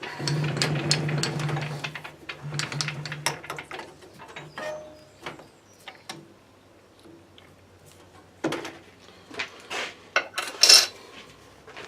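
Metal lathe running with a steady hum for the first few seconds, then stopping, while the end of a freshly parted-off steel part is tidied up. Sharp metallic clinks and knocks follow as the part and tools are handled, with the loudest knocks near the end.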